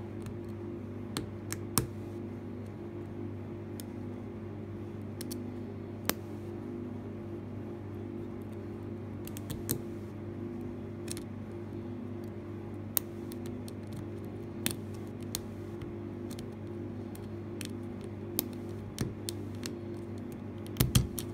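Lock picks working inside a Mindy A16-60 padlock: scattered sharp metallic clicks as a broken pick pushes the spring-loaded parts while a dimple pick holds bottom tension, with a quick cluster of clicks near the end. A steady low hum runs underneath.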